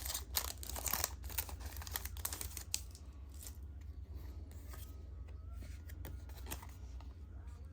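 Foil wrapper of a Pokémon booster pack being torn open by hand, a dense run of crinkling and tearing for the first few seconds, then quieter handling of the pack and cards.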